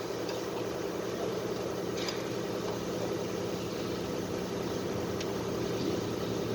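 GMC V8 engine idling steadily, with a couple of faint ticks.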